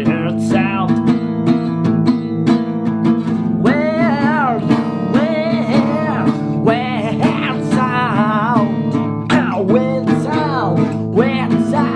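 Music: a strummed acoustic guitar holding steady chords, with a voice singing wordless lines that glide up and down over it.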